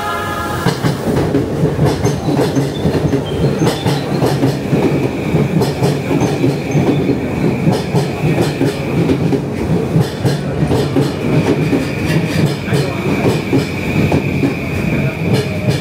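JR Yamanote Line electric commuter train running: a loud, steady rumble full of quick clatter from the wheels on the track. A high, steady squeal joins in about five seconds in.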